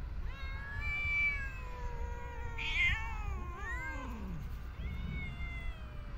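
Cats meowing: several long, drawn-out meows, two or more voices overlapping around the middle, over a low steady rumble.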